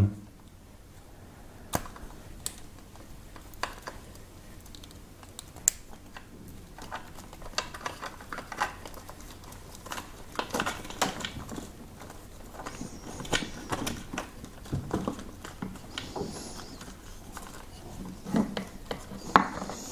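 Cables and plastic plug connectors being handled and pushed into an e-bike frame: scattered small clicks and rustles, busiest about halfway through.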